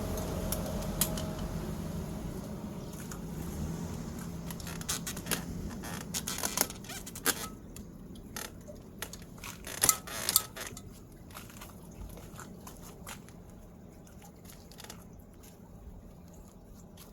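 A low steady hum that dies away over the first few seconds, then scattered clicks and knocks, the sharpest a quick cluster about ten seconds in.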